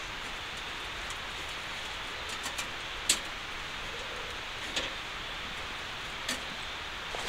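Steady hiss of rain falling, with a few light taps a few seconds apart.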